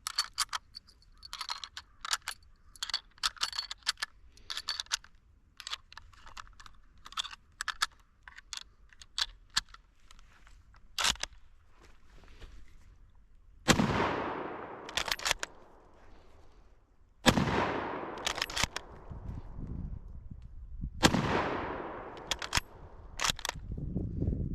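Rifle shots from a 1918 Gewehr 98 bolt-action Mauser firing 8x57 Yugoslav surplus ammunition: three loud shots in the second half, each with a long fading echo, with a sharp clack between shots as the bolt is worked. Before the first shot, a long run of scattered small clicks and clacks.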